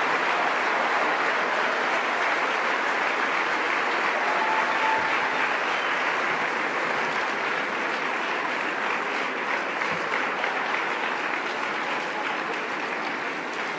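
A large audience applauding steadily in a hall, a dense even clapping that eases off slightly toward the end.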